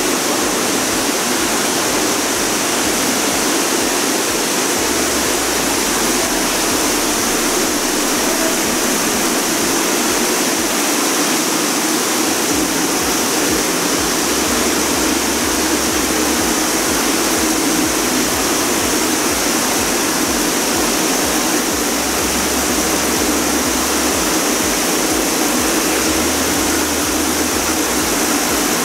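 Steady rush of spring water falling and running down a stone wall in a tunnel's water-curtain display.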